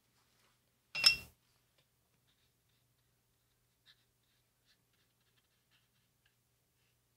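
One sharp clink with a brief ring about a second in, a paintbrush knocking against a hard object. After it come a few faint soft ticks of the brush working on watercolor paper.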